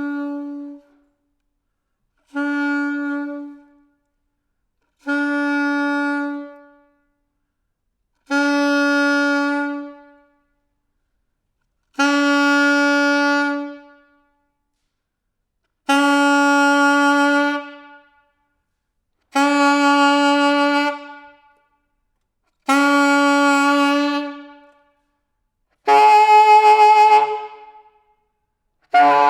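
Solo saxophone sounding the same held note again and again, about nine times. Each tone lasts one and a half to two seconds with short silences between, and each grows louder and brighter than the last. Near the end the tone turns rough and splits, with extra lower pitches under it.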